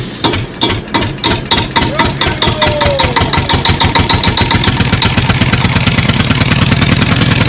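An engine starting up and running, its pulses speeding up from a slow chug to a fast, even beat.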